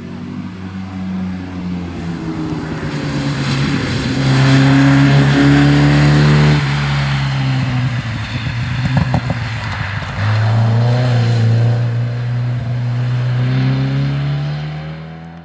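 Rally car's engine running hard at high revs, its pitch climbing, then dropping off the throttle suddenly about six and a half seconds in with a spell of crackling. About ten seconds in it comes back on full throttle and pulls away steadily.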